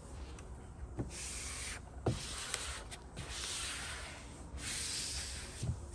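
Vinyl wrap film being rubbed down onto a truck hood in four long scraping strokes, with a few soft knocks between them.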